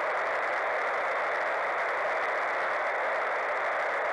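Steady static hiss from a VHF FM radio receiver tuned to the International Space Station's downlink, heard between the astronaut's replies while no voice is coming through. The hiss is even and unchanging, narrow and mid-pitched like a radio speaker.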